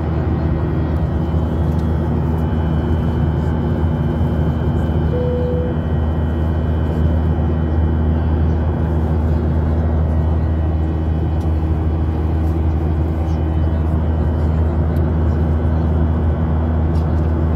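Airliner cabin noise: the steady drone of the jet engines and airflow, with a low hum and faint steady whines. A short tone sounds once about five seconds in.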